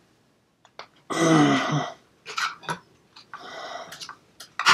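A man's throaty grunt of effort about a second in, then heavy breathing and a short sharp exhale near the end, with a few light clicks between them.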